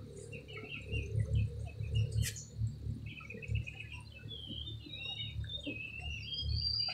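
Small birds chirping in quick, wavering calls over a steady high insect trill, with an uneven low rumble underneath.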